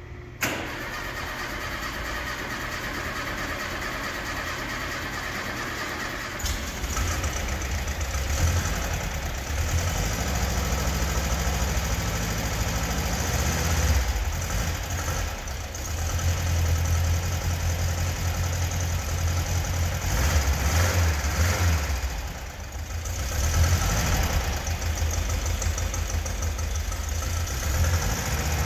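Freshly rebuilt fuel-injected 1600 air-cooled flat-four of a 1977 VW Beetle turning over on the starter for about six seconds, then catching and running on its first start. The revs rise and fall several times as it settles.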